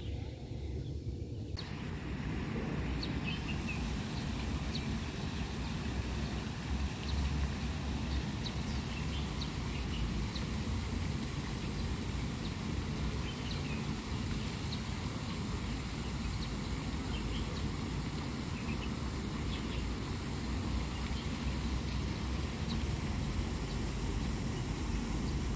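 Steady outdoor noise, a low rumble with an even hiss, with faint, scattered bird chirps.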